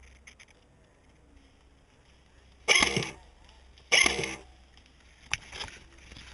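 Two shots from a G&G GR25 electric airsoft DMR, a little over a second apart. Each is a sharp, loud burst that dies away within about half a second.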